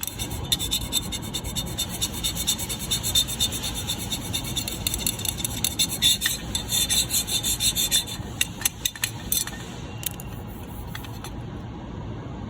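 Steel screwdriver tip scraped rapidly back and forth across a hard-anodized 416 rifle rail, a harsh scratching rasp made of many quick strokes. The strokes thin out after about eight seconds and stop near the end.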